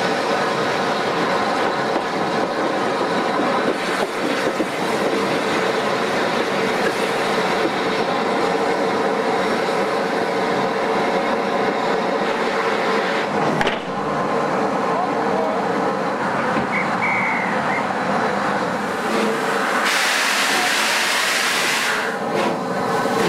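Train noise from just behind the Bulleid Light Pacific steam locomotive 34046: steady running and rail noise with a hum. About 20 seconds in, a loud hiss of escaping steam from the locomotive starts.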